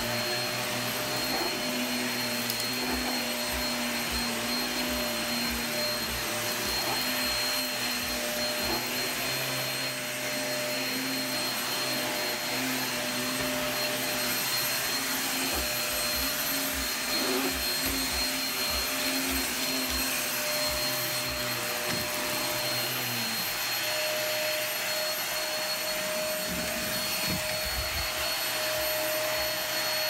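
Bagless upright vacuum cleaner running as it is pushed over carpet: a steady motor whine over the rush of suction.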